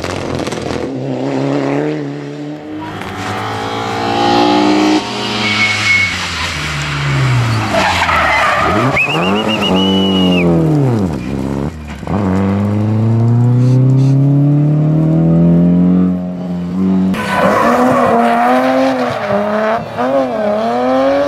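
Several rally cars in turn, their engines revving hard, climbing and dropping through gear changes, as they slide through tight bends on tarmac. There are short tyre squeals about six seconds in and again around nine to ten seconds. Near the end the revs waver quickly up and down as a car is held in a drift.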